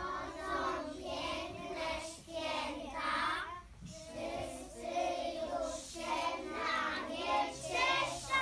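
Group of young children singing a song together, in phrases of a second or two with short breaks between them.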